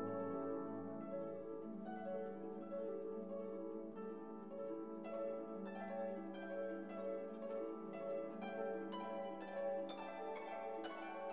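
Background music: plucked string notes over held chords, the plucked notes coming thicker and faster in the second half.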